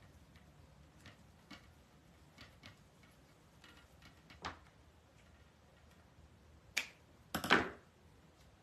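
Quiet hand-crafting sounds at a countertop: faint rustles and clicks of ribbon and deco mesh being worked, a sharp click about halfway through, and a louder short clatter near the end as scissors are handled on the counter.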